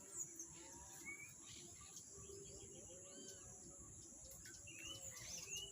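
Faint birdsong: short arched chirps repeated every second or so, with a brief quick trill about three seconds in, over a faint steady background hiss.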